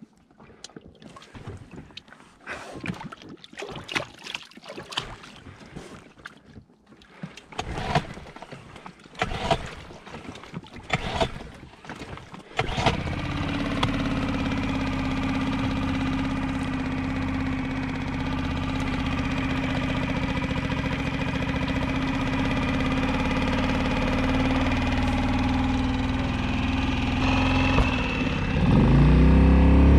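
Yamaha 2.5 hp outboard motor starting after several seconds of knocking and rattling, catching a little before halfway and then idling steadily. Near the end it revs up as the throttle is opened.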